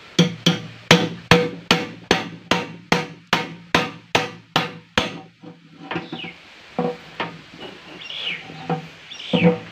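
A hammer striking a dao blade held against a metal drum lid, chiselling through the tin: rapid, even metallic strikes of about three a second with a ringing note, stopping about five seconds in. After that come a few scattered lighter knocks and scrapes as the tools are shifted on the lid, with a louder cluster near the end.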